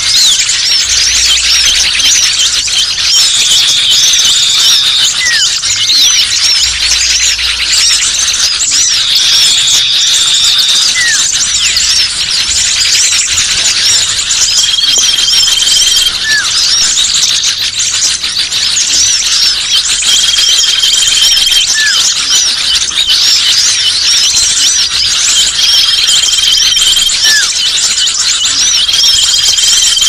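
Bird-trapping lure recording of many small birds calling at once, a dense, restless chatter of short high chirps and twitters. About every five or six seconds a long, steady high whistle sounds, with a short rising note near it.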